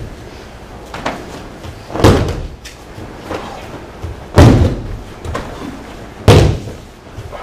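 Aikido breakfalls: a thrown partner landing on the dojo mats, three loud slapping thuds about two seconds apart, with softer knocks in between.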